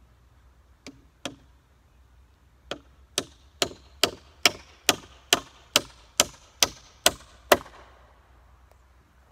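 Hammer driving a nail into wood framing. Two light taps come first, then a run of about a dozen hard, even blows at roughly two a second.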